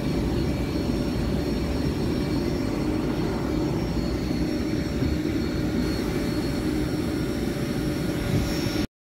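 SBB EuroCity passenger coaches rolling past as the train pulls out: a steady low rumble of wheels on rails, with a few faint steady hums above it. It cuts off abruptly near the end.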